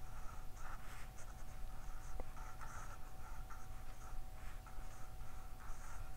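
Pencil scratching on paper in short, irregular strokes as joined lowercase cursive letters are written.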